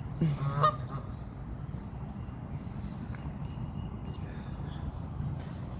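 Goose honking: a short, loud call in the first second, over a steady low hum.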